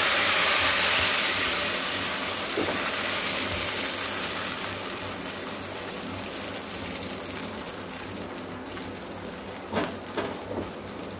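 Appam batter sizzling in a hot, oiled iron appam pan as the pan is swirled. The hiss is loudest at first and slowly dies away, with a couple of light knocks near the end.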